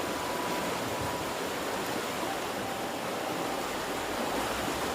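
Steady rush of stream water flowing down from a nearby waterfall.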